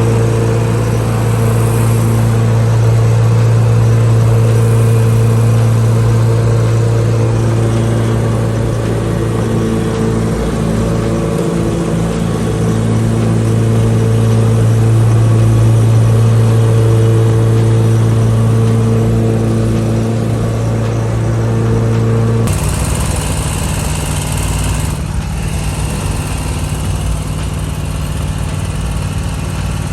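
Lawn mower engine running steadily. About 22 seconds in, the engine note changes suddenly to a different, rougher pitch.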